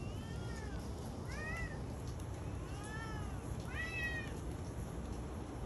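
A cat meowing four times, short meows that each rise and fall in pitch, about a second apart, fairly faint over a low background hum.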